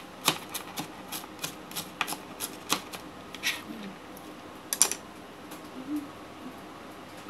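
Kitchen knife chopping bean sprouts on a plastic cutting board: quick knocks of the blade on the board, about three a second, for the first three seconds or so, then a few scattered knocks and a quieter stretch.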